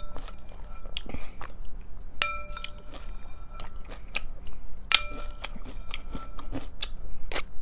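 Close-up crunchy chewing of breakfast cereal, with a spoon clinking against the bowl about four times, each clink ringing briefly.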